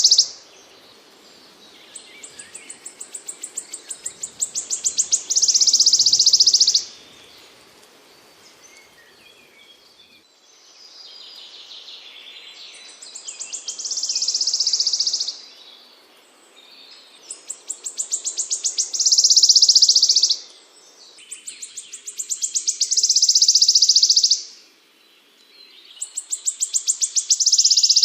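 A small songbird singing the same phrase about five times: a run of quick high ticks that speeds up and swells into a loud buzzy trill lasting a second or two, with softer twittering in the gaps.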